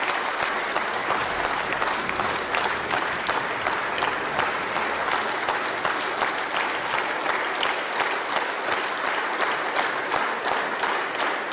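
A large crowd applauding, the clapping falling into a steady rhythm of about three claps a second.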